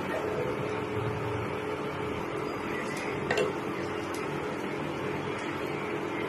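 Spatula stirring a thick potato-and-spinach curry in a kadai, with a couple of light scrapes and taps against the pan about three seconds in, over a steady background hum.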